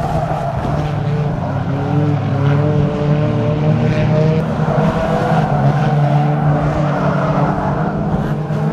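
Several banger racing cars' engines running and revving together as the cars race around the track, their overlapping engine notes rising and falling.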